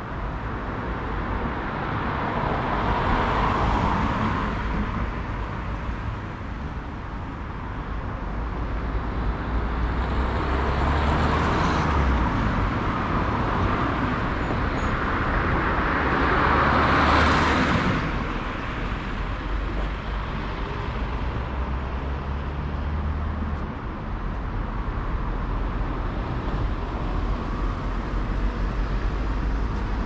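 Road traffic: cars passing one after another, each swelling and fading, the loudest about seventeen seconds in, over a steady low rumble.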